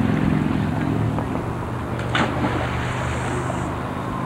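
Steady low mechanical hum under a hiss of outdoor noise, with a brief swish about two seconds in.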